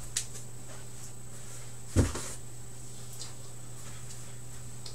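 A single sharp knock about two seconds in, with a lighter click near the start and a few faint ticks, over a steady low electrical hum.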